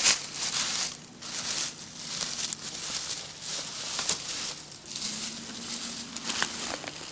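Footsteps crunching and shuffling through dry fallen leaves on the forest floor, in an uneven walking rhythm.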